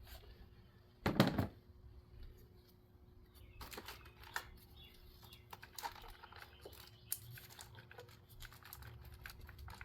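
Small clicks, taps and rustling of a plastic engine wiring harness and its connectors and clips being handled, with one louder rustle about a second in. A faint steady hum sits underneath.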